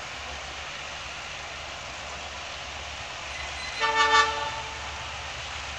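A G22UB diesel locomotive sounds one short horn blast, several notes at once, about four seconds in as it approaches down the line.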